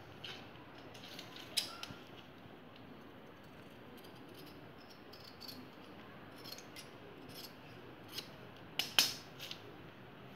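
Scissors cutting through folded cotton fabric: faint scattered snips and clicks of the blades along with cloth being handled, with a couple of sharper clicks about a second and a half before the end.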